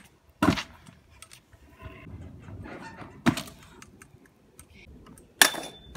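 Freestyle stunt scooter landing and slamming on concrete: three sharp clacks, about half a second in, about three seconds in, and near the end. The last is followed by a brief metallic ring, with the faint rumble of wheels rolling between the hits.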